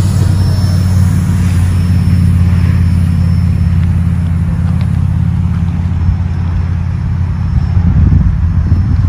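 Loud, low, steady rumble of a freight train of tank cars rolling away down the track just after its rear car has cleared the crossing.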